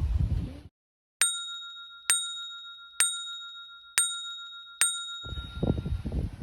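An added bell-like ding sound effect, struck five times about once a second over silence, each strike ringing clearly and then fading. Low rumbling noise cuts off just before the dings and comes back near the end.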